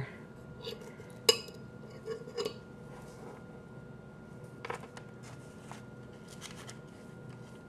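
A metal spoon clinks sharply once against a pot about a second in, followed by a few soft taps and the rustle of paper being handled.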